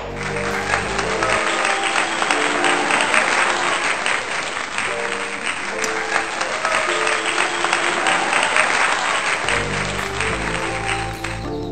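Background music with applause laid over it; the applause begins at the outset and dies away near the end, while the music carries on.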